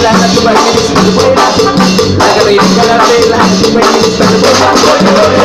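Live brass band with trumpets, trombones and saxophones playing loud dance music over a drum kit, with a steady, repeating bass pattern.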